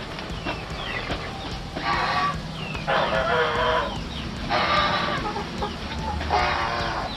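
Domestic fowl calling loudly: four drawn-out, pitched calls about a second and a half apart, with short chirps between them.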